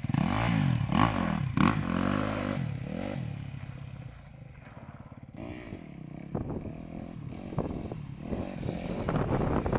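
Motocross dirt bike engine revving up and dropping off several times as the bike accelerates and shuts off for braking. It fades a few seconds in, then comes back with more rises and falls in pitch.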